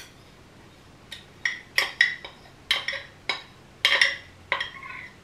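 A spoon scraping and clicking against the inside of a container as thick condensed milk is scooped out into a blender jar: a quick run of short scrapes and taps, two or three a second, starting about a second in.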